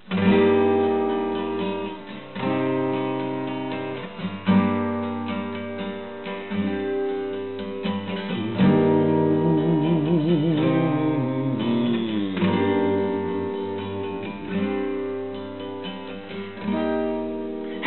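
Instrumental song intro on acoustic guitar: chords struck about every two seconds and left to ring. A wavering held note that slides downward joins in around the middle.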